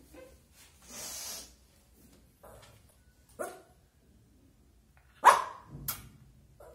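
Lhasa Apso puppy barking: one sharp, loud bark a little past five seconds in, followed quickly by a second, weaker one.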